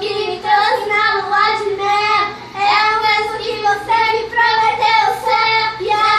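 Two young girls singing a sertanejo song together in long held, gliding notes, with a faint steady low hum underneath.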